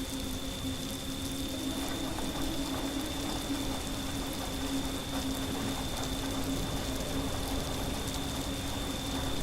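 Steady rain ambience, growing a little denser about two seconds in, with a low steady tone and a faint high tone held underneath.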